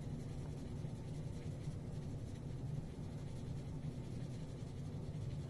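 6B graphite pencil shading back and forth on drawing paper: a faint, steady scratching.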